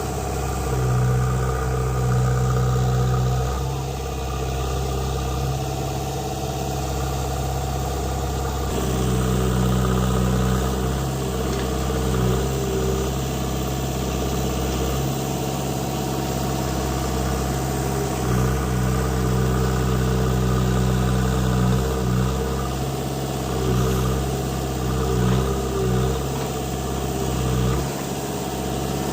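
Diesel engine of a JCB 3DX backhoe loader running steadily, its note strengthening and easing several times as it works.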